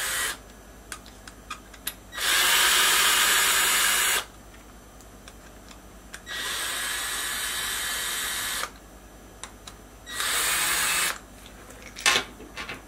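Small Bosch cordless screwdriver driving a steel bolt into an unthreaded hole in a 3D-printed PLA block. It runs in three short spurts, the last one shorter, with pauses between so the bolt and the PLA can cool. A few light clicks and knocks come near the end.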